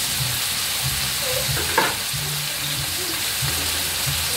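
Chayote, tomato and onion sizzling as they sauté in a frying pan on a gas stove, with a steady hiss. One sharp clink of a utensil against the pan comes about two seconds in.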